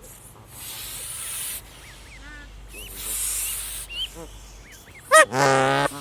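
Thin high peeps of goslings. Just after five seconds in, an adult goose honks loudly: a short rising note, then a longer held one.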